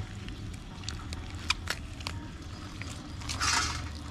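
Hands working a raw chicken carcass: scattered small wet clicks and pops from skin and flesh being pulled apart, with a brief rustling scrape about three and a half seconds in. A low steady hum runs underneath.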